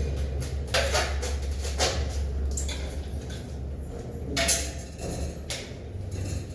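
Irregular knocks, clicks and scrapes, the loudest about four and a half seconds in, over a steady low hum.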